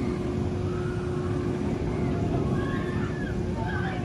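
Bolliger & Mabillard steel sit-down roller coaster train running through its track and vertical loop, a steady low rumble with a constant hum under it.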